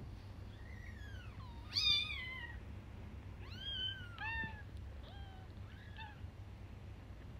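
A very young kitten mewing: about six thin, high-pitched mews, each rising and falling in pitch. The loudest comes about two seconds in, and the rest follow in quicker, shorter succession in the second half.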